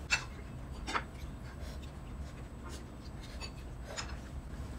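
A metal spoon clinking and scraping lightly against a ceramic bowl, a few soft clicks: one just after the start, one about a second in, and one near the end.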